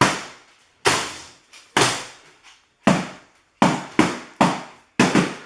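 A hammer striking an LG dishwasher, about eight heavy blows, each ringing and rattling briefly before the next, coming closer together in the middle of the run.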